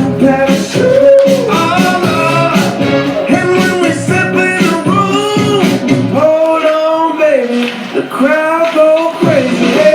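Upbeat pop song with a sung melody over a beat. The bass and drums drop out for about three seconds past the middle, then come back near the end.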